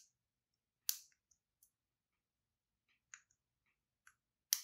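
Light metallic clicks of a lock pick and tension tool working the pins inside an American Lock 1100 padlock: one sharp click about a second in, a few faint ticks, then several clicks close together near the end.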